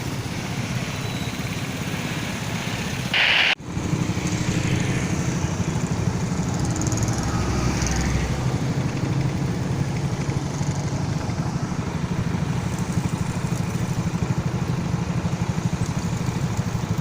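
A vehicle engine running steadily with a pulsing hum. A short, loud hiss just after three seconds stops abruptly.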